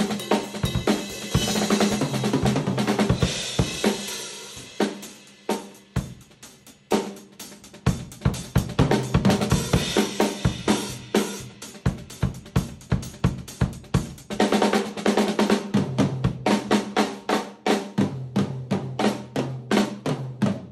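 A drum groove played on a Shell Shock Custom stave-shell drum kit: bass drum, snare and cymbals, with a thinner stretch a few seconds in. In the second half, tom hits ring out low.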